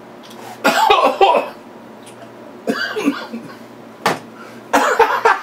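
A man coughing and huffing in about four short bouts, mouth full of food too hot to eat.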